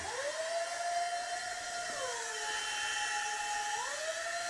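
Toy helicopter's small electric motor whining over a steady hiss. Its pitch rises as it speeds up at the start, drops about two seconds in, and rises again near the end.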